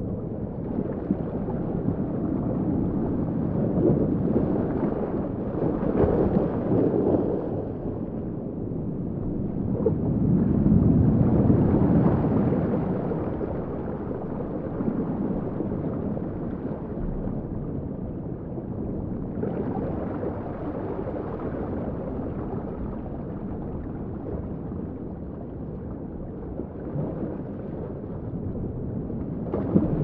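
Sound-designed underwater ambience: a muffled, low rush of moving water that swells and eases every several seconds.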